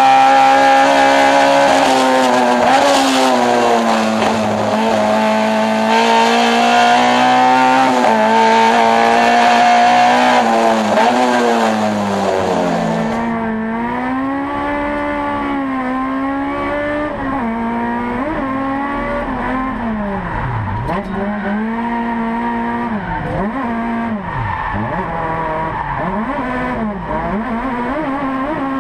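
Toyota AE86's 4A-GE twin-cam inline-four running hard at high revs, its pitch dipping and climbing back again and again as the throttle is lifted and reapplied. About halfway through, the sound turns duller, with quicker, deeper dips and blips in revs.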